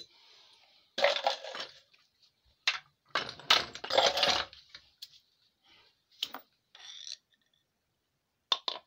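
Small metal parts and tools clinking and clattering as they are handled, in several short bursts. The longest and loudest comes about three to four and a half seconds in.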